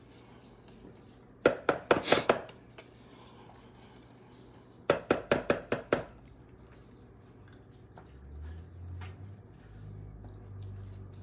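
Wooden spatula knocking against the side of an enamelled pan while stirring a thick sauce: two quick runs of sharp taps, one about a second and a half in and another about five seconds in.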